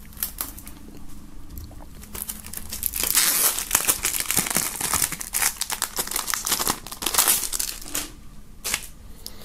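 Plastic shrink-wrap film being slit with a knife at its seal and pulled off a CD jewel case: a few small clicks at first, then about six seconds of dense crinkling and tearing as the film comes away.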